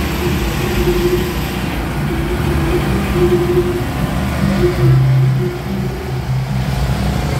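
Portable gasoline generator on a pushcart running steadily, supplying power to the lights of a procession float.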